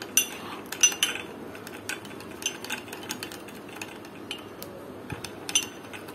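Metal teaspoon beating instant coffee, sugar and a splash of hot milk in a glass cup to whip it creamy: a steady scraping with irregular clinks of the spoon against the glass. The clinks are loudest about a second in and near the end.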